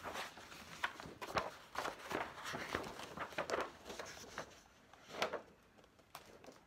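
Pages of a large picture book being turned and the book handled: irregular paper rustling and flapping with a few sharper strokes, quieter near the end.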